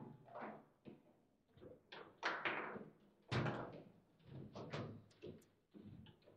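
Table football in play: the ball struck by the plastic figures and knocking around the table as the rods are worked, a run of irregular sharp clacks and knocks, the loudest about three seconds in.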